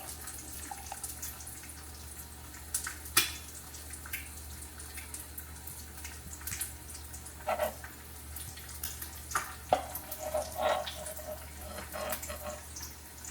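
Kitchen sounds while making coffee: scattered light clinks and taps of cups and utensils with some running or pouring liquid, over a low steady hum.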